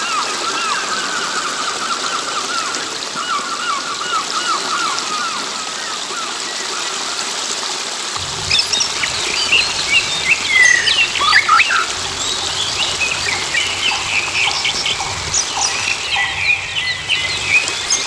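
Stream water trickling steadily over a small cascade of stones, with birds chirping. A quick run of repeated lower chirps comes in the first half, then a busier mix of higher chirps and short falling whistles from about eight seconds in.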